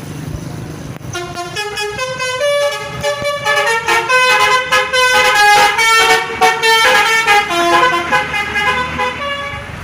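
Basuri telolet horn on a bus playing a quick tune: clear horn notes stepping up and down, often several sounding together, starting about a second in and stopping just before the end.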